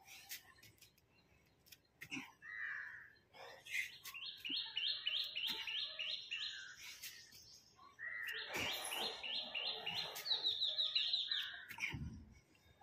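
Birds calling outdoors: a fast series of repeated chirps, about three a second, in two runs of a few seconds each, with other scattered bird calls around them and a dull low thud near the end.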